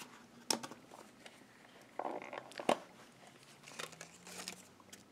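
Light handling sounds from a small plastic case and paper: a few sharp clicks and a brief rustle about two seconds in.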